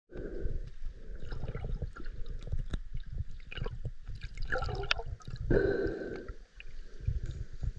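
Shallow seawater sloshing and splashing, with a low, irregular rumble and small clicks; the water swells louder twice, near the start and about two-thirds of the way through.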